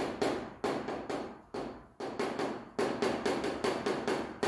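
Writing on a board: a quick, irregular run of sharp taps and strokes, about three or four a second.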